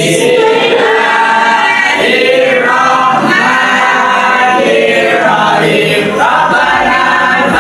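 A class of students chanting a prayer together in unison, sung like a choir without a break.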